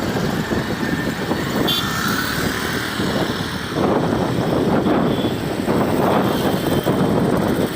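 Helicopter rotor and engine noise, a steady rapid chop that grows louder about four seconds in.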